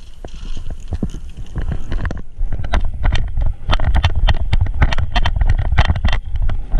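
Irregular sharp clicks and knocks, several a second and coming thicker after about two seconds, over a steady low rumble.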